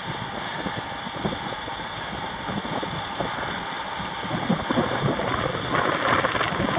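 Wind buffeting the microphone of a camera carried on a moving bicycle, a steady rushing noise with uneven low thumps. It grows louder about six seconds in.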